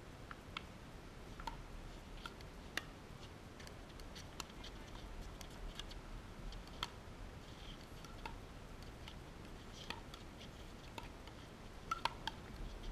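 Pickleball paddles hitting a hard plastic ball, with the ball bouncing on the court: faint, sharp pops at irregular intervals, a few louder ones near the end.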